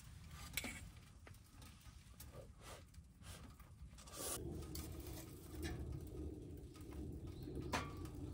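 Cooking sounds: a few light, scattered clicks and knocks of utensils against a pot and dishes, with a steadier low sound coming in about halfway through.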